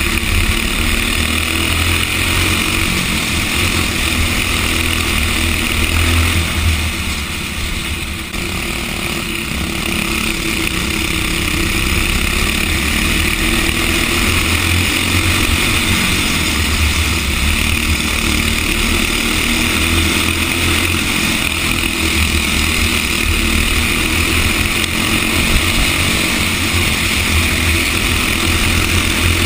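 Racing kart engine running hard, recorded from on board the kart. The engine note drops briefly about seven seconds in, then builds back up.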